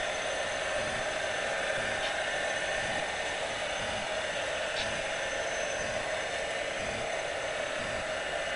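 O scale model freight train rolling by: a steady whir and rumble of metal wheels running on the track, with a couple of faint clicks.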